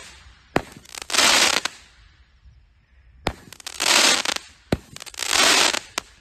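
Brothers Pyrotechnics Angel Dust XL, a Category F2 firework barrage, firing three shots. Each shot is a sharp launch crack followed about half a second later by a loud burst of dense crackling that lasts under a second.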